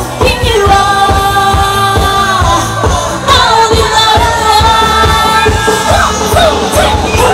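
A woman singing a pop song live into a microphone over amplified backing music with a steady beat. She holds long notes, one in the first half and another after about three seconds.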